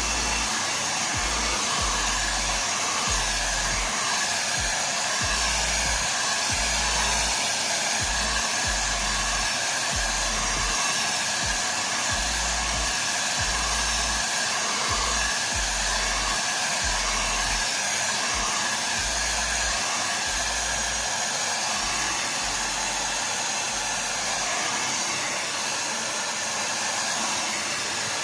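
Hand-held hair blow dryer running steadily, blowing air through hair as it is dried.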